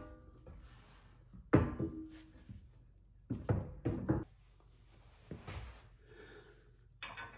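Metal side step knocking and clanking against the underside of a Ford Bronco's frame as it is held up and shifted into place for bolting. There are a few separate clanks, one about a second and a half in with a short metallic ring, a quick cluster around three to four seconds, and a lighter knock later.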